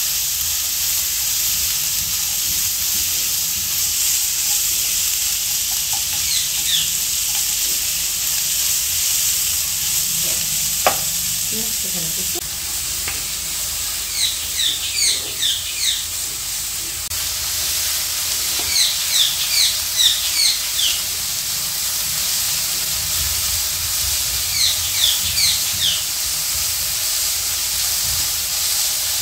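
Sliced onions sizzling in a tablespoon of oil in a non-stick kadhai while a spatula stirs them, frying until translucent: a steady high sizzle with a single tap near the middle. Several times, clusters of short, high, falling chirps sound over it.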